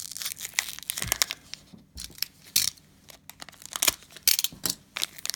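Plastic cello wrapper of a basketball card pack being torn open and crinkled by hand: irregular sharp crackles, with a short lull about two to three seconds in.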